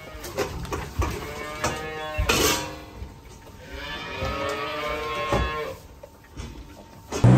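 Calves mooing in their pens, several calls with the longest drawn out for about a second and a half near the middle, over scattered clicks and knocks.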